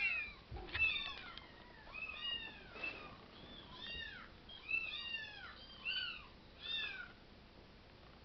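Kittens meowing: a rapid series of about a dozen short, high-pitched meows, each rising then falling in pitch, which stops about seven seconds in.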